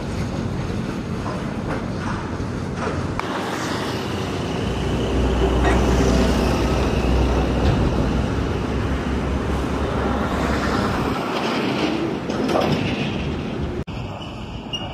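Container freight train wagons rolling over the rails in a steady rumble and rattle, with occasional sharp clicks of wheels over rail joints. The rumble swells in the middle, then cuts off suddenly near the end to a quieter rumble.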